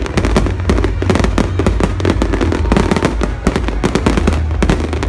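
Aerial fireworks display: a dense, continuous barrage of crackling and popping bursts, many sharp reports a second overlapping one another over a steady low rumble.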